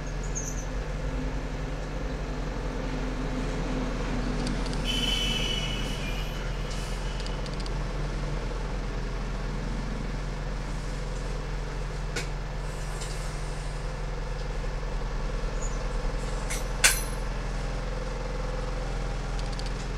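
A steady low electrical hum from running equipment, with a sharp click about seventeen seconds in.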